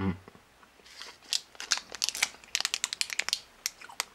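Crinkly plastic candy wrapper around a piece of burger-shaped bubble gum being picked up and handled, an irregular run of sharp crackles starting about a second in.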